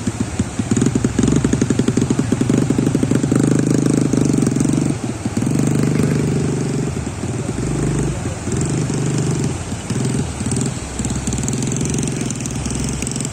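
Speedboat's outboard motor idling with a steady, rapid throb, over the wash of small waves breaking on the beach.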